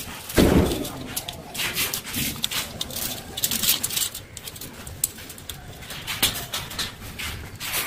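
Copper screen tape crinkling and rustling in short crackles as it is handled and wrapped around an HT cable core. A louder, short low sound comes about half a second in.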